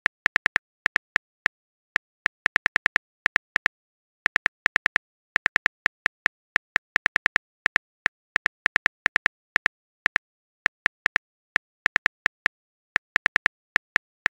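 Phone keyboard typing sound effect: short, sharp ticks in irregular clusters of several a second, with pauses between the clusters.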